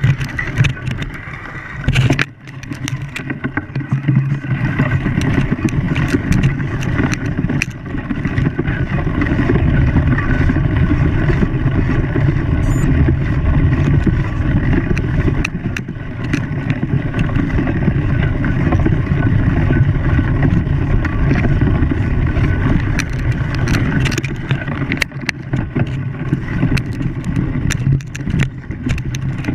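An engine running steadily, with scattered short knocks and clatters over it.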